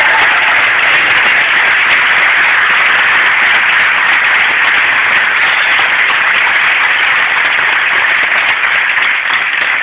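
A large audience applauding loudly, many hands clapping at once, beginning to die down near the end.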